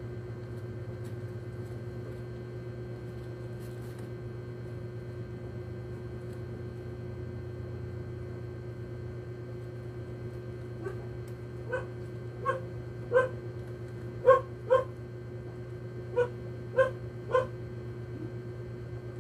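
A dog barking about eight times in short groups through the second half, over a steady low hum.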